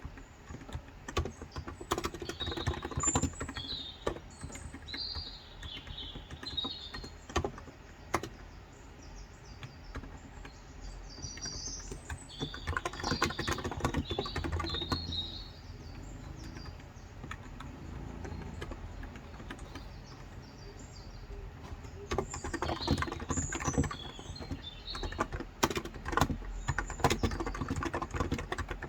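Typing on a COX Endeavor electro-capacitive keyboard with 35 g switches: quick runs of keystrokes in bursts, thinning out between them. Birds chirp in the background.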